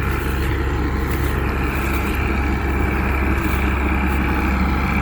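Combine harvester's engine running at a steady speed, a continuous even drone.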